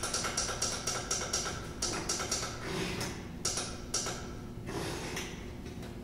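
Irregular sharp clicks and taps, two or three a second, from everyday objects played as percussion on a tabletop, over a faint steady tone; the taps thin out near the end.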